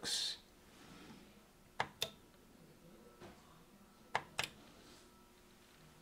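Two pairs of sharp clicks, about two seconds apart, from presses on the buttons of a Treatlife smart ceiling fan control wall switch, over a faint steady background.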